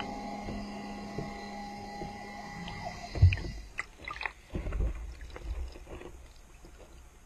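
An underwater camera rig being hauled out of a lake beside a boat. A steady hum with a few held tones is heard through the housing until about three seconds in. Then comes one loud knock, followed by a run of bumps and water sloshing as the housing knocks against the hull, fading away.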